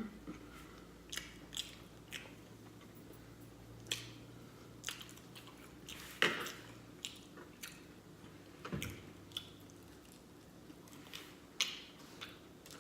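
A person chewing food with wet mouth smacks and clicks, close to the microphone, in scattered irregular bursts; one sharper smack comes about six seconds in.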